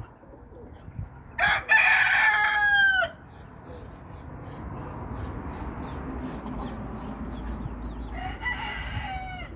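A rooster crowing: one loud crow about a second and a half in, ending on a falling note, and a second, fainter crow near the end.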